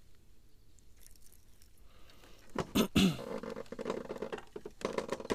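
A small crucian carp slapping and flopping on wooden planks: a few sharp loud slaps about halfway through, then a scatter of smaller taps and rustles.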